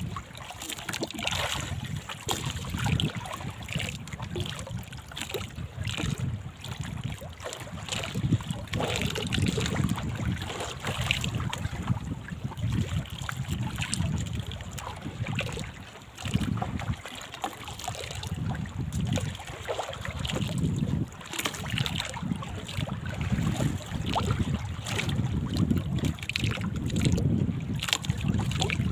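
Wind buffeting the microphone in uneven gusts, over water sounds.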